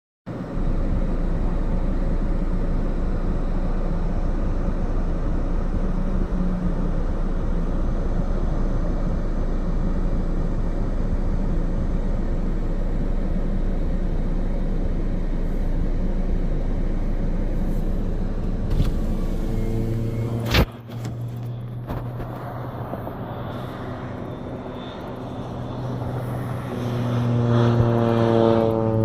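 Steady rumble of a moving vehicle for about twenty seconds, ending in a sharp click. Then a quieter droning engine follows, its pitch rising near the end.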